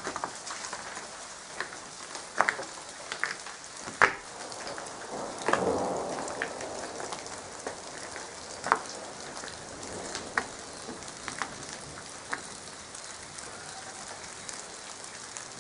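Steady patter of rain after a hail storm, with scattered sharp ticks and knocks. A louder, rougher rustle swells up about a third of the way in.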